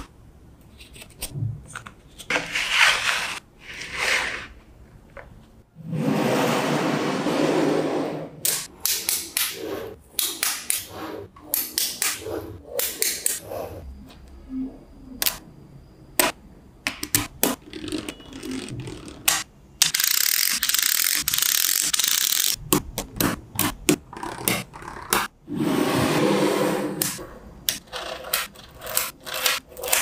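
Small magnetic balls clicking sharply as they snap onto one another, many times in quick runs, with three longer stretches of scraping and rattling as strips and blocks of the balls are handled and pressed into place.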